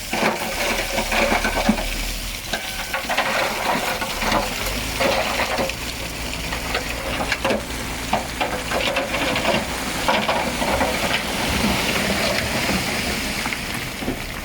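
Loose stone crunching and rattling: a dense crackle of many small clicks, over a faint low machine hum.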